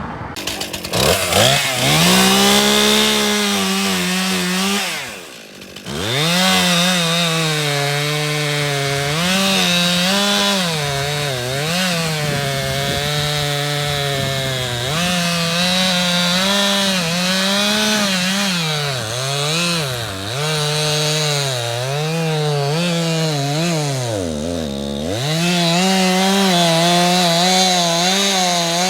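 Stihl MS 261 two-stroke chainsaw running hard and cutting wood, its engine speed repeatedly dipping and climbing. The revs drop sharply about five seconds in and again about twenty-five seconds in, then pick back up.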